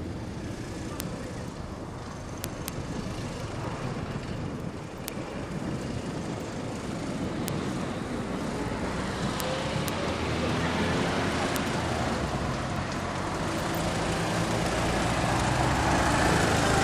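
Quad bike (ATV) engine running as it rides closer, growing steadily louder. In the second half its note rises and falls with the throttle.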